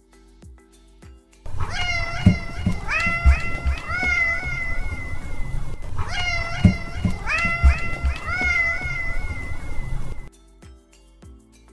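A cat meowing insistently: a quick run of rising, drawn-out meows, then after a short break the same run again, with low thumps underneath.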